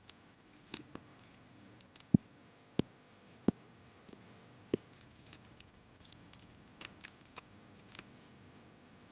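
Irregular sharp taps and clicks from stickers being handled and pressed into a sticker puzzle. There are a few louder clicks in the first five seconds and lighter ticks after.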